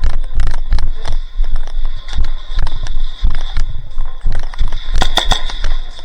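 Airsoft gunfire: a string of sharp, irregular pops and knocks, with a cluster of the loudest ones about five seconds in.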